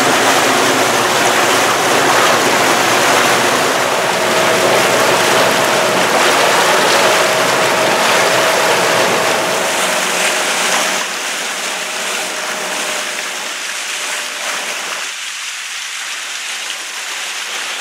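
Rushing, churning water of a moving boat's wake, heard from on board, with a faint steady whine in the middle of the stretch. The rush eases and thins about two thirds of the way through.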